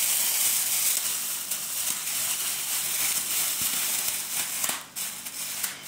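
Thin clear plastic shower cap crinkling and rustling as it is stretched open and pulled on over the head. The crinkling dies down about five seconds in.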